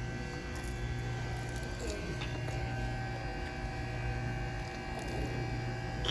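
Low electrical hum of restaurant equipment that swells and fades every second or so, with faint background clatter of a dining room.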